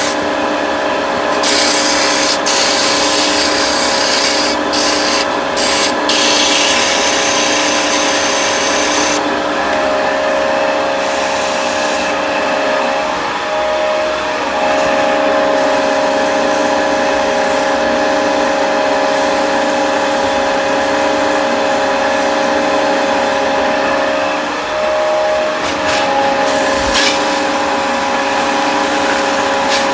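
Sandpaper rubbing on a spinning wooden workpiece on a Vicmarc VL300 wood lathe, with the lathe's motor whine steady underneath. The hiss of the sanding comes and goes, and the motor's pitch dips briefly twice, near the middle and again near the end.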